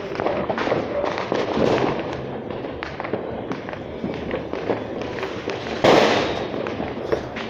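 Fireworks and firecrackers popping and crackling in quick irregular succession, with one louder bang about six seconds in.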